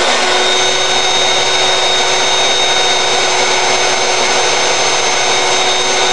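Craftsman 3x21-inch variable-speed belt sander running steadily at speed, a steady motor whine over the rush of the belt.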